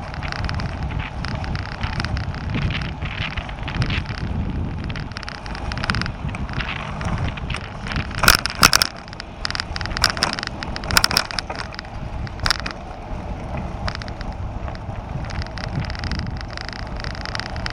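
Bicycle rolling along a cycle path, with steady wind rumble on the microphone and tyre noise. About eight seconds in, a run of sharp rattles and knocks lasts for about four seconds as the bike jolts over brick paving and kerbs at a road crossing.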